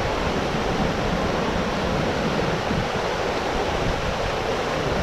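Steady rush of flowing water, a continuous even noise.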